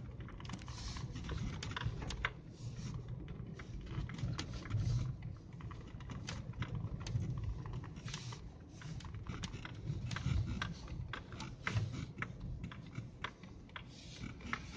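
Inside a car driving slowly on a snow-packed road: a steady low rumble of engine and tyres, with many irregular light clicks and crackles on top.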